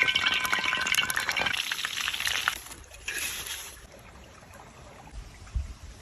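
Liquid sound with crackles that starts abruptly and lasts about two and a half seconds, then a shorter second burst about three seconds in.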